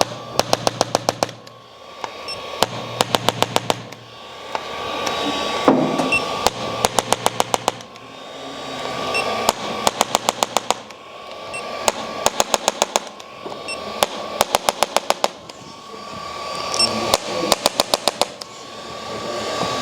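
Chiropractic impulse adjusting instrument firing short bursts of rapid clicks, about ten a second, repeated every three seconds or so, with a steady high tone and a swelling hiss between bursts.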